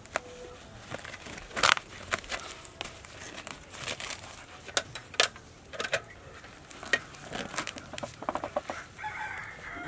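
Rustling and sharp knocks from a woven sack being handled on a hanging scale. Chickens cluck near the end, and a rooster starts to crow.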